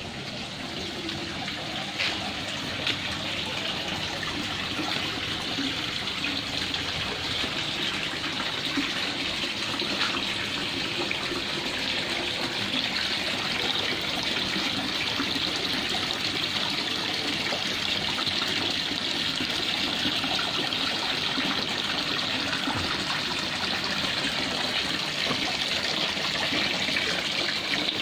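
Water pouring and splashing steadily from a small garden water feature, a spout running out of a clay pot. It grows louder over the first several seconds, then stays even.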